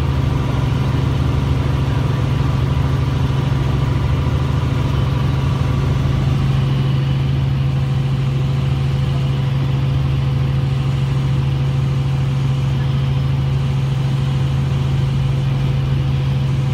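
Steady drone of a small helicopter's rotor and engine in cruising flight, heard inside the cabin: a loud, unchanging low hum with a few fainter steady tones above it.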